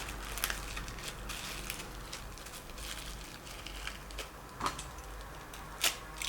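Light clicks and taps of a helping-hand soldering stand's metal clips, arms and magnifier being handled and fitted together, with two sharper knocks about a second apart near the end.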